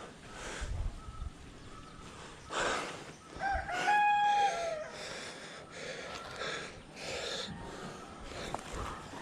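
A rooster crowing: one drawn-out crow a little before halfway, the loudest sound, among scattered faint outdoor noises.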